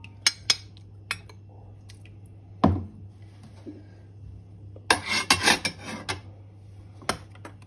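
Metal slotted skimmer clinking and knocking against a cooking pot while cooked meat is lifted out of the broth: scattered sharp clinks, one heavier knock a little under three seconds in, then a quick burst of clattering about five seconds in as the skimmer is set down.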